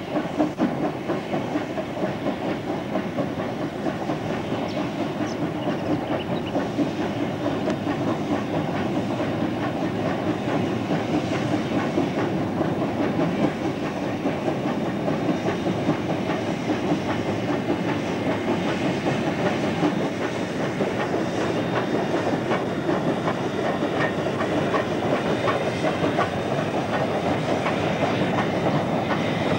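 Queensland Rail C17-class 4-8-0 steam locomotive 974 and its train crossing a steel-truss and timber-trestle bridge: a steady rumble and dense clatter of wheels on the bridge.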